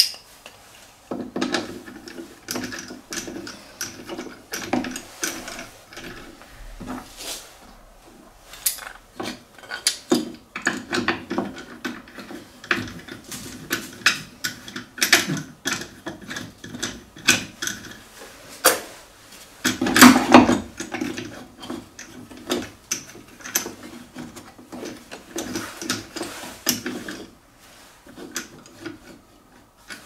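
Plastic star knobs and wooden hold-down clamps being handled on a plywood jig table: knobs threaded onto bolts and pieces set down, giving scattered clicks, knocks and scrapes, with a louder clatter about two-thirds of the way through.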